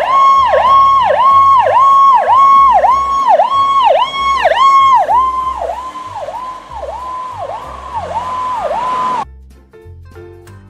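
Emergency-vehicle siren sounding a repeating tone that dips sharply and swoops back up about twice a second. It grows fainter over several seconds and then cuts off abruptly near the end.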